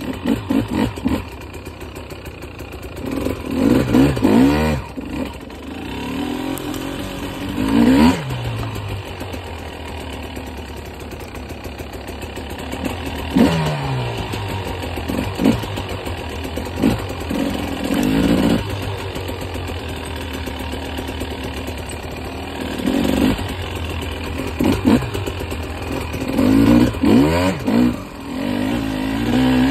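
KTM 300 XC two-stroke dirt bike engine picked up from its own handlebars while riding, its pitch rising and falling over and over as the throttle is opened and closed, with sharp surges every few seconds.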